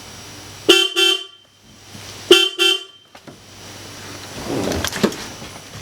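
1991 Isuzu Stylus car horn sounding in two double honks, a pair of short beeps about a second in and another pair about two seconds later: the horn works through the newly fitted Momo steering wheel's horn button.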